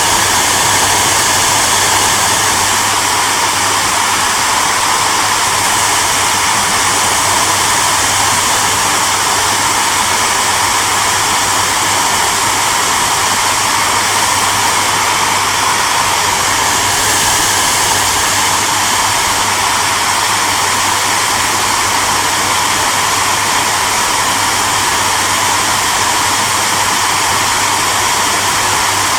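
Hair dryer running steadily: a constant blowing rush of fan and airflow with a low motor hum and a faint whine, unchanging throughout.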